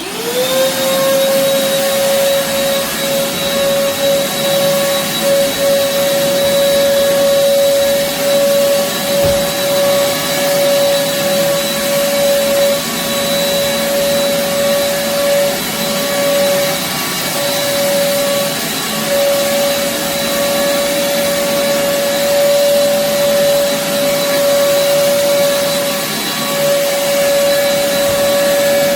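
Old vacuum cleaner switched on, its motor whining up to speed within about half a second and then running steadily while it vacuums carpet. The machine is about ten years old and has lost its suction.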